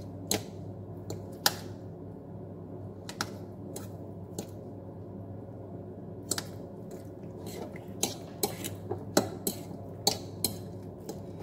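Metal fork clinking against a ceramic bowl while mixing eggs into cauliflower pieces and breaking them up. The taps are scattered at first and come more often in the second half.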